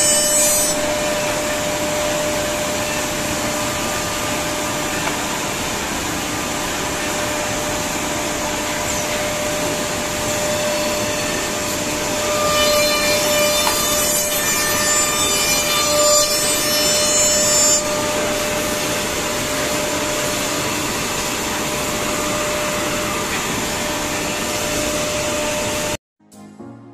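Woodmaster WM-D200FR two-ended CNC tenoning machine running, with the steady whine of its spindles and a wood-cutting noise that grows louder and harsher for about five seconds past the middle. The sound cuts off shortly before the end.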